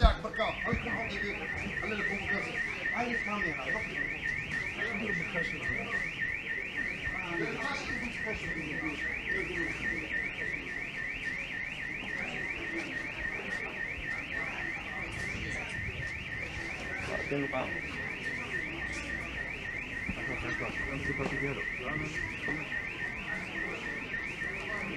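An electronic alarm going off: one high-pitched tone sweeping upward again and again in rapid succession, without a pause, over faint voices and movement.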